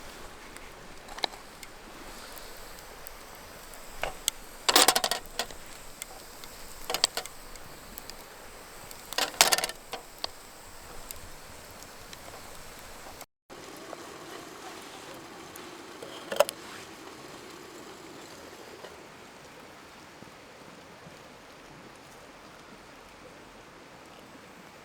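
A few short clattering clinks of objects being handled, over a steady rushing background.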